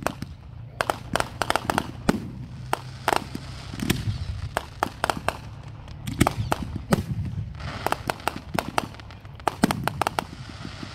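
Aerial firework shells launching and bursting, an irregular, rapid string of sharp bangs, several a second.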